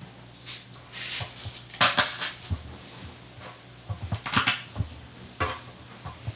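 Kitchen knife cutting food on a cutting board: irregular knocks on the board and short scraping bursts, loudest about two seconds in and again past the middle.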